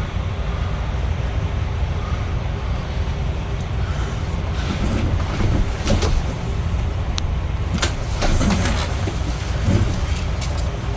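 Steady low rumble of background machinery, with faint distant voices and a few sharp clicks.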